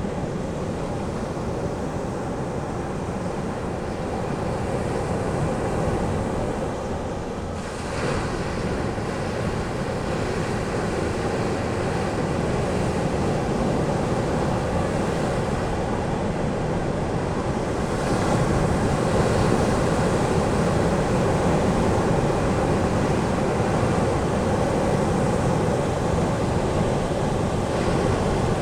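Ocean surf washing steadily onto a beach, a continuous rush of breaking waves that grows louder about eight seconds in and again around eighteen seconds in.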